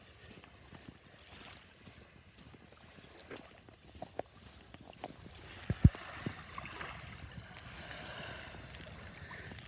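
Small waves lapping at the shore of a calm lake, growing fuller in the second half, with scattered footsteps on sand and a couple of louder thumps about six seconds in.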